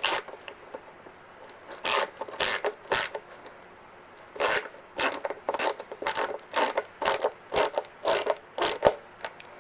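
Short clicks and scrapes of small plastic parts being pushed and fitted into a toy smartwatch by hand, in about a dozen irregular bursts.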